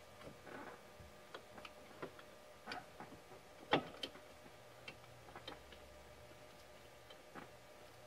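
Faint, scattered clicks and taps of a plastic seat lumbar support frame and its spring being handled and fitted into a seat back, with one sharper click near the middle.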